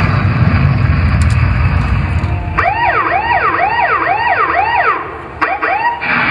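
Loud music cuts out about two and a half seconds in and gives way to a siren sound effect that rises and falls about twice a second for some three seconds, part of the performance's soundtrack. The music comes back near the end.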